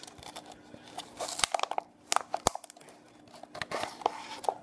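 Thin plastic water bottle crinkling and crackling as it is handled while a rubber band is stretched around its neck, with irregular sharp clicks; the loudest click comes about halfway through.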